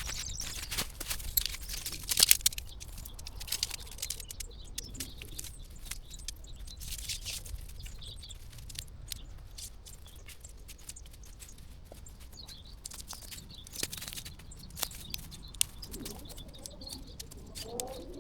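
Forest birds chirping, with scattered close knocks and rustles, the loudest a cluster about two seconds in.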